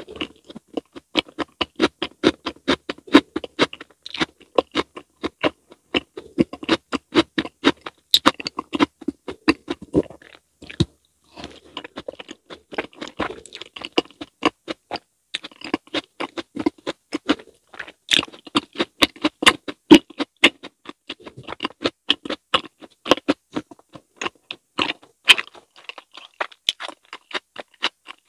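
Close-miked chewing of a fruit mochi topped with whipped cream: soft rice cake, red bean paste and fruit worked in the mouth with a fast run of clicks and smacks, pausing briefly about eleven seconds in.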